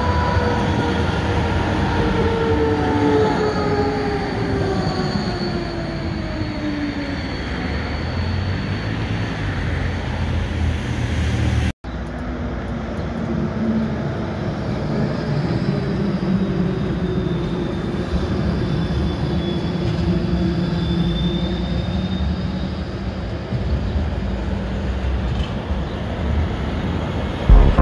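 Low-floor articulated electric trams running past on street track, with a steady rumble of wheels on the rails. For the first several seconds a motor whine falls steadily in pitch. After an abrupt cut about 12 s in, a second tram passes with a steadier whine that rises and falls a little.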